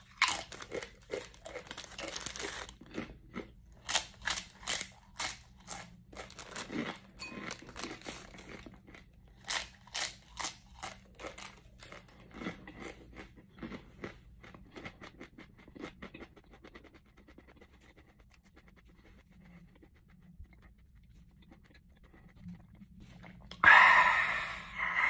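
Crunching and chewing of Paqui One Chip Challenge tortilla chips in the mouth: dense crisp crunches for the first dozen seconds, thinning out and fading to quiet. Near the end a person lets out a loud, sudden cry.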